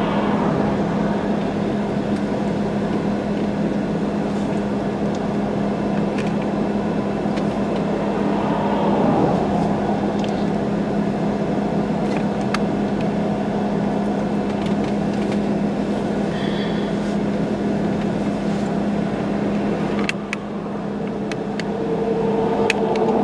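Steady low hum of an idling vehicle engine, with a few light ticks over it and a brief drop in level about twenty seconds in.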